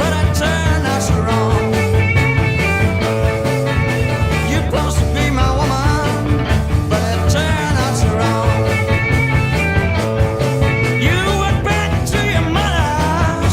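Late-1960s blues-rock band playing an instrumental passage: a lead line bending in pitch over bass and drums.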